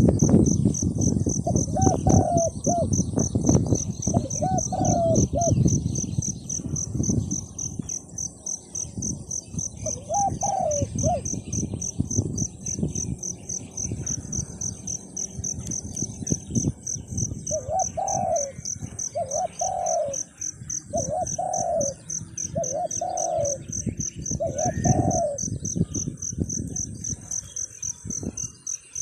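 Wild dove cooing in short repeated phrases, a few spaced apart at first, then five in a row from about the middle on, over a steady pulsing insect trill. Low rumbling knocks are loudest during the first several seconds.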